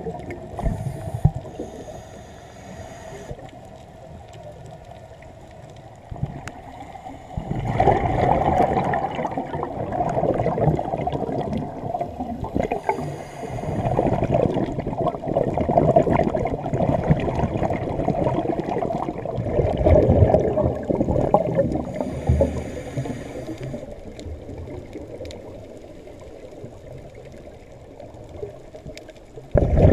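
Scuba breathing heard underwater, muffled through the camera housing: short hisses of inhaling through the regulator, then several loud bursts of exhaled bubbles gurgling and rushing past, each lasting a few seconds.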